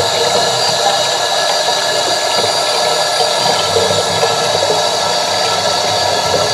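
Tap water running hard in a steady stream into a homemade plastic-tub toilet bowl, splashing into the water already in it. The bowl fills without the gulp of a siphon starting: its trapway is not pulling the water out.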